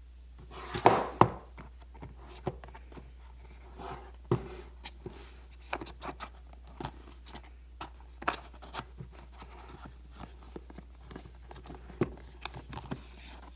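Cardboard packaging and paper inserts being handled while a box is searched: scattered taps, clicks and rustles, with two sharper knocks about a second in.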